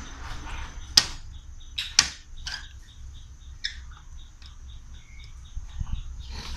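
Plastic bottle-cap checkers clicking and tapping on a wooden board as pieces are moved: two sharp clicks about a second apart, then several lighter taps.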